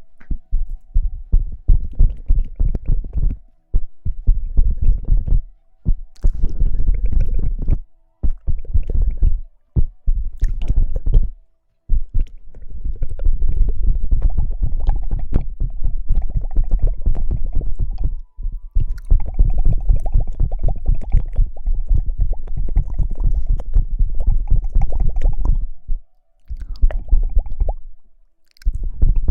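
ASMR rustling and hair-washing sounds: close-miked rubbing and scratching, heavy in the bass and crackly. They come in stretches of a few seconds broken by short pauses.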